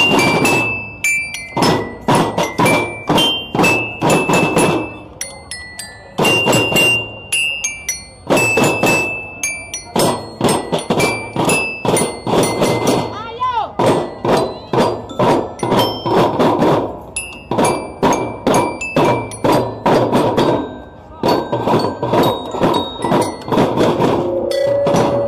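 Live percussion music: quick, even drum strokes with short, high ringing notes from a mallet-struck metal bar instrument, breaking off briefly twice.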